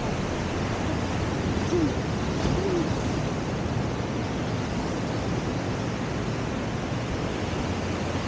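Steady rush of ocean surf breaking on the beach.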